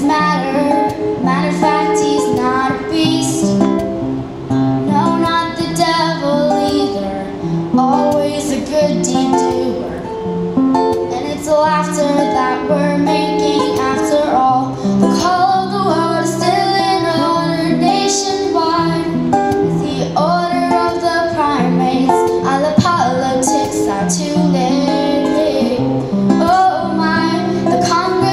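A boy singing a song into a microphone, accompanied by an acoustic guitar.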